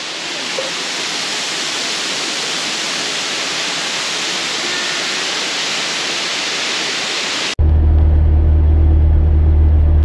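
Steady rushing of a waterfall pouring into a rock pool. It cuts off suddenly about seven and a half seconds in, giving way to the steady low drone of the Iveco Daily 4x4 truck driving on a sealed highway.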